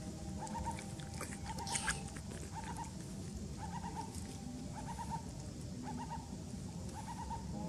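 A bird calling over and over in short notes, over a low steady rumble of outdoor ambience, with a brief rustle about two seconds in.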